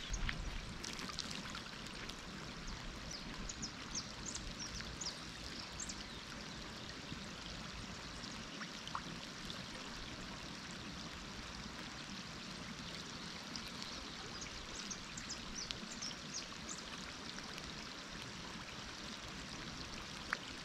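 Rain coming down harder outdoors: a steady soft hiss with scattered ticks of individual drops.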